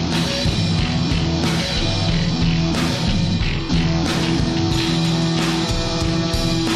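Rock music with distorted electric guitar and a steady drum beat.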